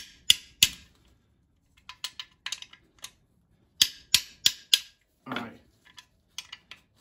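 Sharp metallic clicks of a hand tool working the sump pan bolts in short runs of three or four, as the bolts are cracked off and brought back to a light nip.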